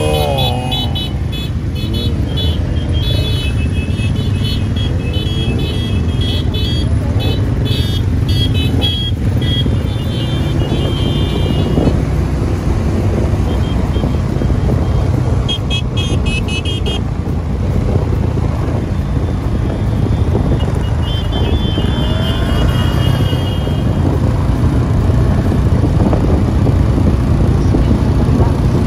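Motorcycle engines running as a large group rides along, heard from one of the bikes with a steady low rumble. Spells of rapid high-pitched beeping come and go over the first twelve seconds and twice more, briefly, later on.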